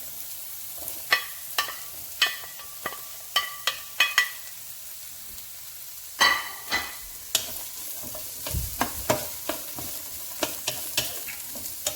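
Chopped vegetables sizzling in hot oil in a pan as they are stir-fried, with repeated sharp clinks and scrapes of the stirring utensil against the pan, some clinks ringing briefly.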